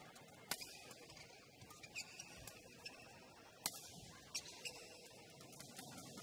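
Badminton rally: rackets striking the shuttlecock with sharp pops, the loudest about half a second and nearly four seconds in, with a few short shoe squeaks on the court floor over a low hall hiss.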